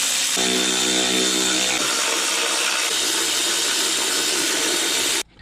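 Milwaukee Fuel cordless ratchet running, spinning out a plenum bolt: a steady motor whine with a deeper pitched hum from about half a second to nearly two seconds in. It cuts off suddenly near the end.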